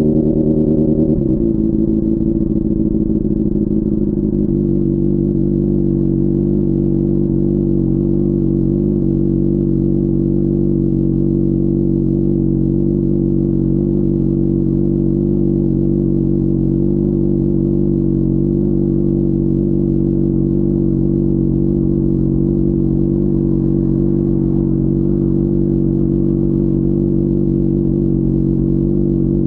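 Honda CBR600RR's inline-four engine running. Its revs drop about a second in, then hold at one steady note.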